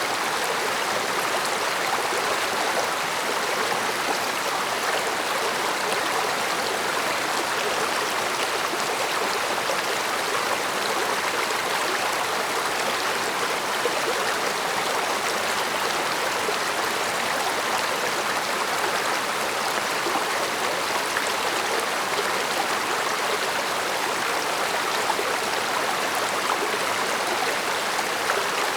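Stream water flowing with a steady, unbroken babbling rush.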